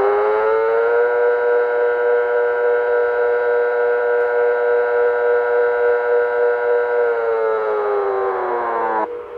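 Siren wail, civil-defense style: the pitch rises at the start, holds steady for about six seconds, then slides down and cuts off suddenly near the end.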